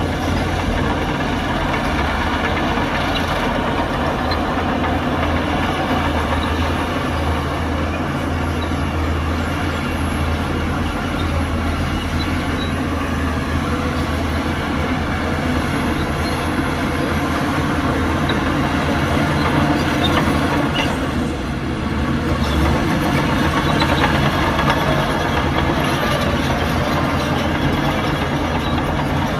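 Heavy diesel earthmoving machinery running steadily with a deep engine note. It dips briefly about two-thirds of the way through, then picks up again a little louder.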